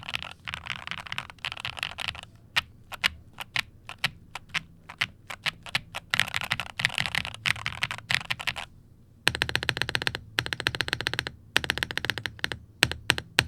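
Luminkey 98 (LK98) mechanical keyboard with its stock switches being typed on. Fast runs of keystrokes alternate with a stretch of slower single key presses about two to six seconds in, then dense rapid typing toward the end.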